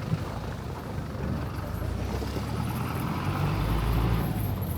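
Low engine rumble of passing road traffic over a steady hiss, swelling about three seconds in as a vehicle goes by.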